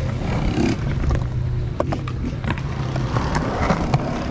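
Skateboard wheels rolling over concrete: a steady low rumble with scattered small clicks and knocks from the board.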